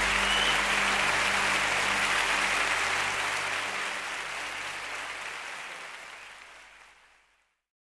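Audience applause over the last held notes of a song, the whole fading out and gone about seven seconds in.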